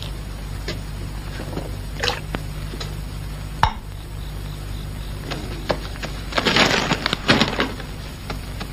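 Scattered light knocks and clatter of household items being handled, with a short burst of rustling hiss about six and a half seconds in, over the steady low hum of an old film soundtrack.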